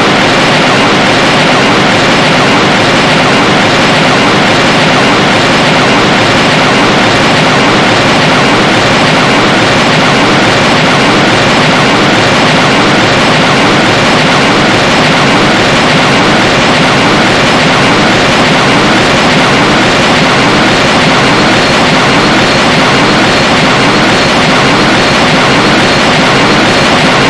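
A cartoon sound effect: a loud, steady rushing noise with a faint rising sweep repeating through it, clearest in the middle stretch.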